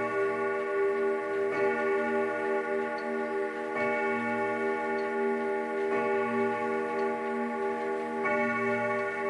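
Junghans Westminster chime grandfather clock striking the hour: one ringing note struck four times about two seconds apart, each stroke ringing on into the next. The pendulum ticks about once a second underneath.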